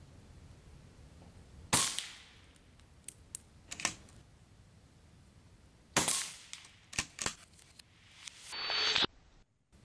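Two shots from a Daystate Delta Wolf PCP air rifle, about four seconds apart, each followed by a few lighter clicks. Near the end, a swelling noise cuts off abruptly.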